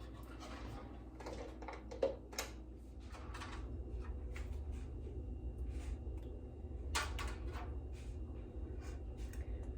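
Light kitchen handling noises, scattered clicks and knocks, over a steady low hum that gets a little louder about three and a half seconds in.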